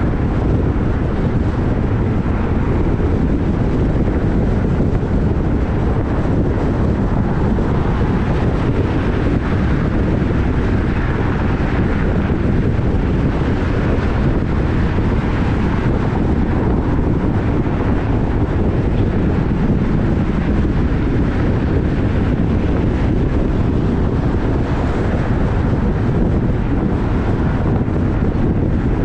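Wind buffeting the microphone over a steady low rumble, unbroken and even.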